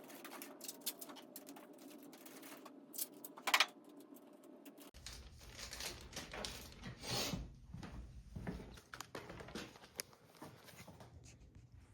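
Brown paper and masking tape being handled and pressed around a mower wheel: a run of quick scratchy rustles and clicks, with one sharper crackle about a third of the way in.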